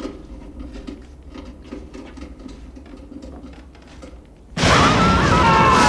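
Film soundtrack in a dark attic: faint scattered creaks and clicks over a low hum, then about four and a half seconds in a sudden, very loud burst of sound with several wavering, held pitched tones.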